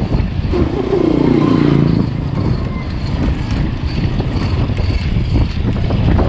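Wind rushing over a bicycle-mounted action camera's microphone while riding, with a motor vehicle passing about a second in, its engine note dropping in pitch as it goes by.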